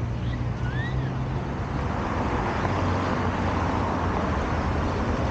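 Steady road traffic noise: vehicle engines humming and tyres rushing on the road, growing slightly louder after about two seconds.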